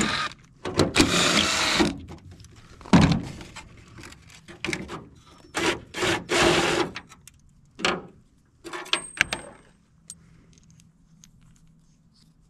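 Cordless impact driver run in a series of short bursts, each under about a second, driving fasteners into a pickup's sheet-metal bed side. After about ten seconds only faint clicks of parts being handled remain.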